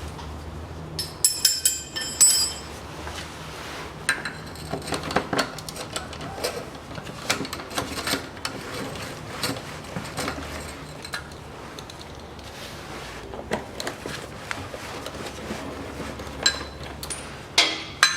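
Hand wrench undoing the nuts of a car's gear-shift lever support: scattered metal clinks and taps, with a short ringing metallic clatter a little over a second in.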